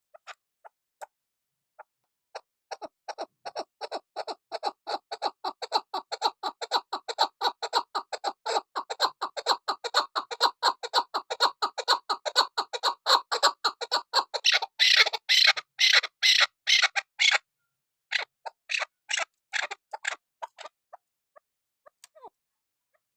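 Female chukar partridge calling: a long run of rapid clucking notes, about five a second, that builds in loudness. The notes turn higher and louder, break off in a short pause, and resume as a few spaced notes.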